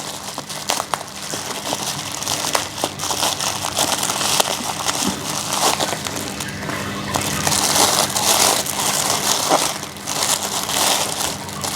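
Plastic bubble wrap crinkling and crackling as it is unwrapped by hand, with a brief lull about ten seconds in.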